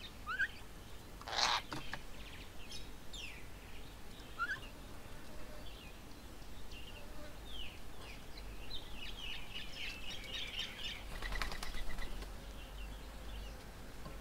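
Birds chirping and calling faintly in short, scattered notes, with a brief flutter of wings about a second and a half in and a longer flurry of wingbeats around eleven seconds in.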